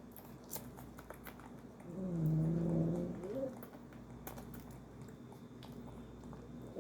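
A sleeping animal snoring: one long pitched snore about two seconds in, lasting about a second and a half and rising at its end, with faint clicks around it.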